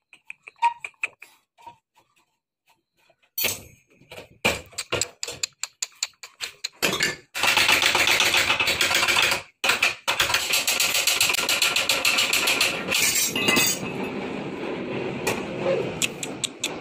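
Metal wrenches and steel motorcycle swingarm parts clinking and rattling as the swingarm is unbolted and pulled apart: a few light clicks, then from about three and a half seconds in a dense, nearly continuous metallic clatter.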